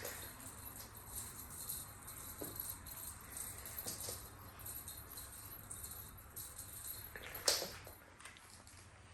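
Irregular light jingling and rattling, like a small bell or rattle toy being batted about, with one louder clatter about seven and a half seconds in.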